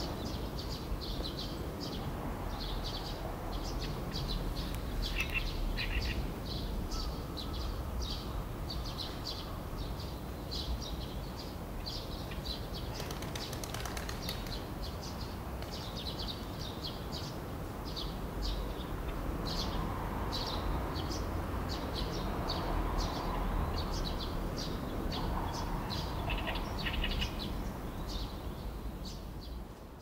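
Juvenile Eurasian tree sparrows chirping over and over, about two short high chirps a second, over a low steady rumble.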